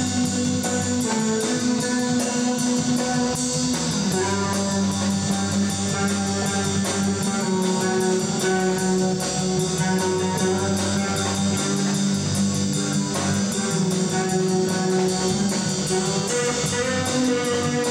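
A live band playing an instrumental passage, with electric bass guitar and drums keeping a steady beat under held notes.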